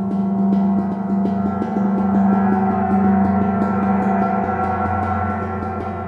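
26-inch vintage Zildjian Turkish tam-tam played with a soft mallet in light, repeated strokes, about three a second. It keeps up a steady, sustained wash of many overlapping tones, strongest in a low hum.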